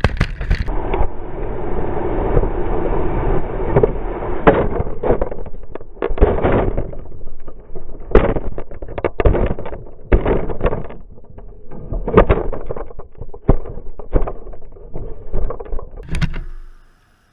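Road and wind rush with many hard knocks and scrapes: an RC car carrying a GoPro, dropped from a car moving at about 100 km/h, tumbling and scraping along the road. The sound cuts off suddenly near the end.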